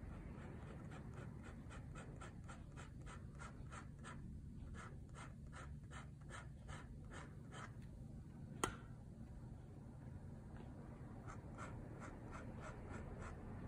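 Metal dip-pen nib scratching across paper in quick repeated hatching strokes, about three a second, faint. A single sharp click a little past halfway, then after a short pause the hatching strokes start again.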